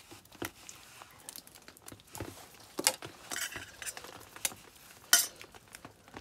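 Eggs being cracked open with a knife blade over a steel bowl: sharp taps and clicks of metal on shell, with a cluster around three seconds in and a loud crack about five seconds in.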